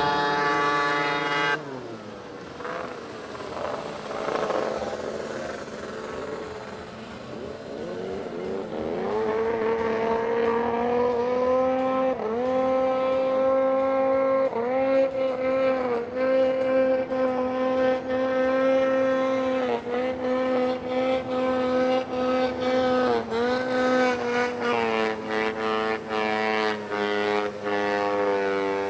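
Snowmobile engine at high revs; the revs drop suddenly about a second and a half in, climb back up over several seconds, then hold high with short dips every few seconds as the throttle is eased and reopened.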